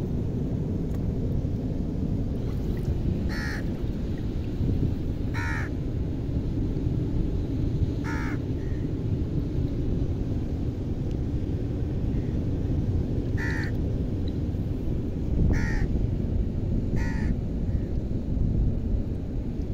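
A bird calling six times, each a short call, spaced a few seconds apart, over a steady low rumble of wind and water.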